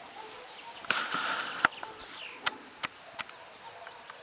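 Handling noise on the camera being zoomed: a short rustle about a second in, then four sharp clicks or knocks over the next two seconds.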